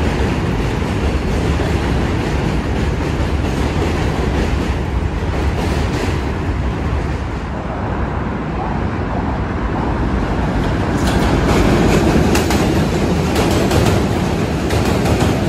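New York City subway trains running across a steel bridge with a steady heavy rumble. The sound eases a little about halfway through, then grows louder again as a second train passes close by, with rapid clicks of its wheels over the rail joints.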